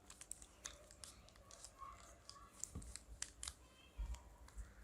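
Rubik's cube being turned and handled: faint, irregular plastic clicks as the layers are twisted, with a few soft knocks near the end.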